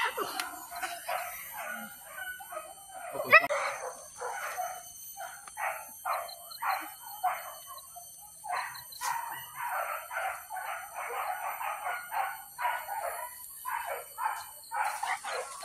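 Hunting dogs barking and yelping over and over, two or three barks a second, the barks thickening toward the middle, with sharper yelps at the very start and about three seconds in.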